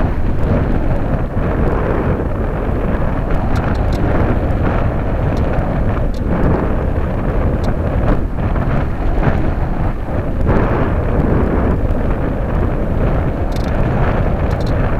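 Airflow rushing over the microphone of a #11 keychain camera riding on a Radian powered glider in flight: a loud, steady, deep rush with no clear motor whine.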